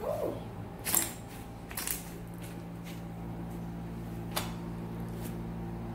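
Fluffy slime being pressed and stretched, giving a few sharp pops and crackles as trapped air pockets burst, over a steady low hum.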